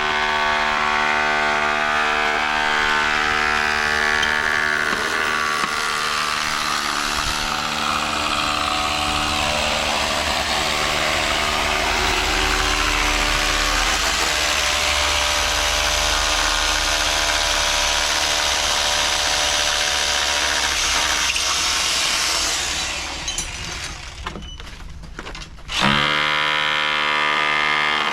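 A machine's motor running steadily at a concrete pour; near the end it drops off for a few seconds, then comes back abruptly and rises in pitch.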